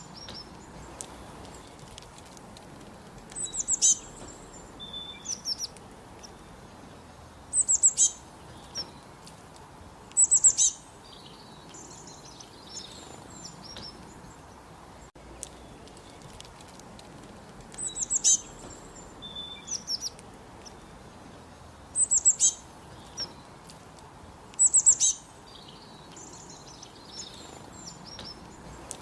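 Northern cardinal singing: about six phrases, each a rapid run of steeply falling whistled notes, repeated every few seconds. Fainter bird twittering between phrases over a steady background hiss.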